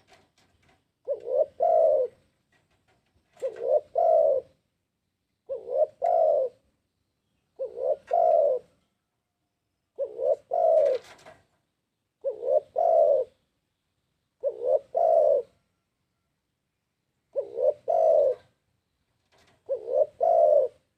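Spotted dove (tekukur) cooing its song over and over, a phrase about every two seconds. Each phrase is a short note, a brief break, then a longer coo.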